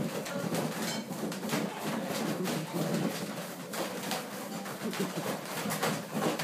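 A bunch of helium balloons, latex and foil, shaken by their ribbons so that they bump and rustle against each other, with frequent irregular light knocks.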